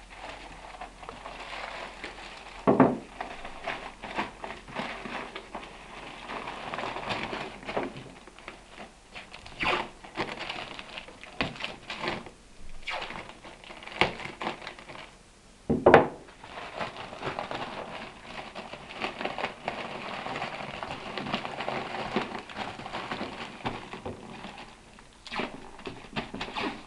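Packing tape pulled off a hand-held roll and pressed down over a paper blanket wrapped around a picture frame, with the paper crinkling and rustling under the hands. A few sharp knocks stand out, the loudest about three seconds in and in the middle.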